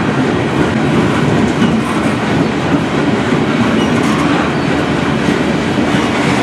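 CN freight train's cars, many of them hoppers, rolling past on steel wheels, a loud, steady rumble and clatter on the rails.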